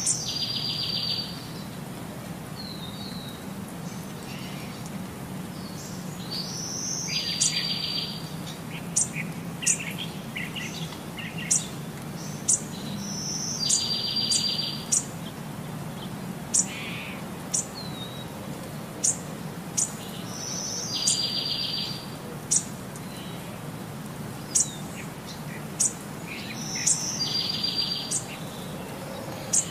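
Bird-like chirps and, about every six and a half seconds, a short buzzy trill of about a second, the same pattern repeating over and over over a faint steady hum.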